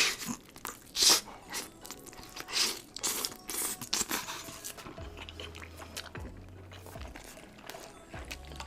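Bites and crunching chewing on a chicken drumstick: several loud crunches in the first four seconds, then quieter chewing.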